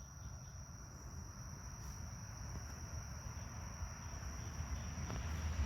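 Insects chirring in a steady, high-pitched drone, over a low rumble that grows louder near the end.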